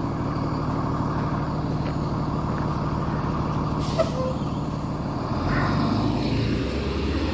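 School bus engine running at a standstill, with a short sharp air-brake hiss about four seconds in. Near the end the engine note changes and gets louder.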